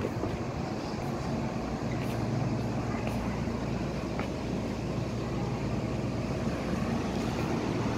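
Kobe Municipal Subway 6000-series train standing at the platform, its onboard equipment giving a steady low hum.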